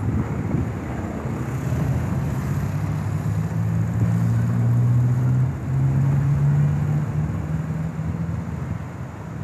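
Large coach bus's diesel engine pulling away with a low, steady exhaust drone that grows louder a few seconds in, dips briefly about halfway and then runs on before easing near the end.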